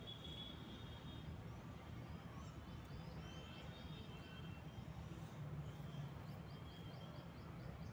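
Faint steady low background hum and noise, with a few faint high chirps and a short run of faint ticks near the end.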